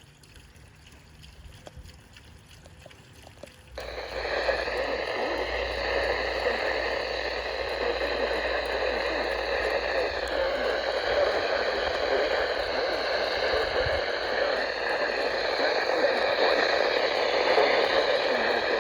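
Weather radio receiver playing static hiss from a weak, barely received NOAA Weather Radio signal. After a quiet start, the hiss comes up suddenly about four seconds in and holds steady.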